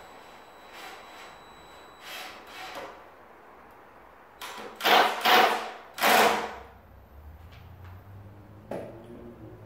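Cordless drill-driver driving screws into a wooden window frame in short bursts: two lighter bursts about two seconds in, then three loud ones around five to six seconds in, and a single knock near the end.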